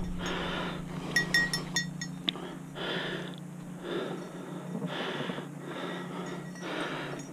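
A mountain biker's heavy breathing, hard breaths coming about once a second while riding. A short run of light clicks comes a little over a second in.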